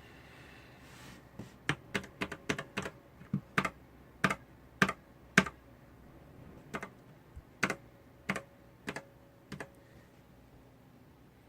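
Keystrokes on an ABCO Hacker K8100 mechanical keyboard with red linear switches. The keys are pressed one by one at an uneven pace, about twenty strokes with a short pause near the middle, and they stop a couple of seconds before the end.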